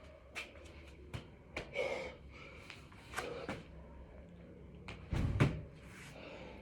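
Irregular knocks and scuffs of hands and feet striking the floor during six-count burpees, with the heaviest thud about five seconds in.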